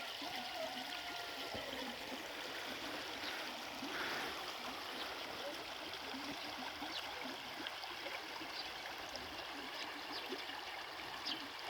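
A small river flowing steadily, an even rush of running water.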